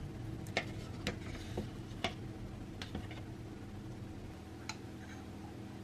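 A handful of light clicks and taps, about seven in five seconds, from kitchen utensils and containers being handled, over a low steady hum.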